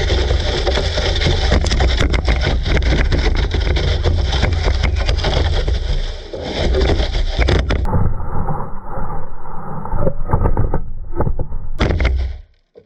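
Rough scraping and rumbling of a camera sled dragged over grass behind a running RC car, with many small knocks and clatters. It drops out suddenly near the end.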